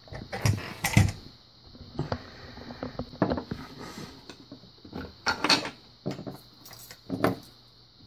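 Handling of a brass lock cylinder: it is taken out of a bench vise and set down on a wooden bench and into a wooden tray. This gives a string of irregular clicks, knocks and small metallic clinks, with a few louder knocks near the start and in the second half.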